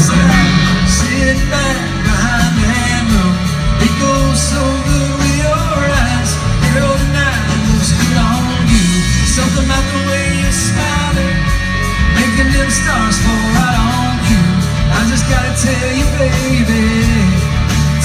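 Live country band playing loud through a PA: strummed acoustic guitars, electric bass and drums, with a singer's voice over them, heard from within the audience.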